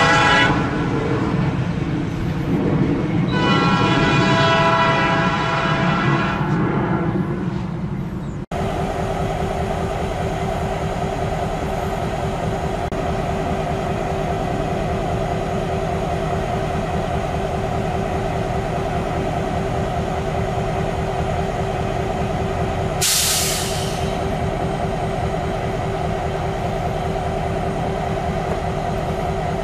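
A freight train's diesel locomotive horn blows in long blasts, breaking off and sounding again over the rumble of the train. Then the sound changes abruptly to a CN diesel locomotive's engine running close by in a steady drone, with a short hiss of air near the end.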